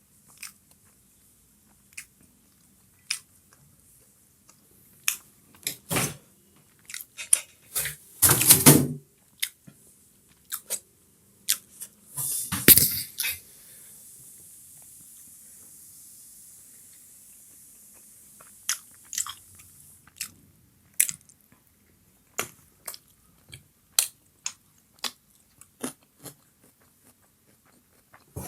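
Close-miked chewing and biting of chicken momos, with frequent short wet mouth smacks and clicks. Two louder rustling bursts come about 8 and 13 seconds in, and after the second a faint steady hiss lasts about six seconds.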